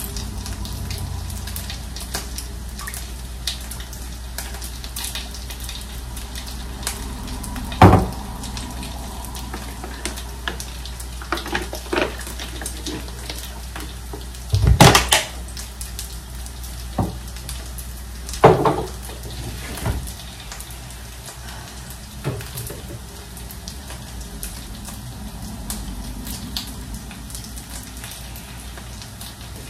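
Food frying in a pan on the stove with a steady sizzle, broken by several sharp knocks and clatters of dishes and kitchenware. The loudest come about 8, 15 and 18 seconds in.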